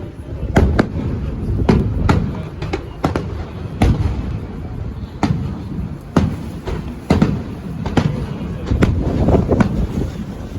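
Aerial fireworks going off: sharp bangs at irregular intervals, about one or two a second, over a continuous low booming rumble.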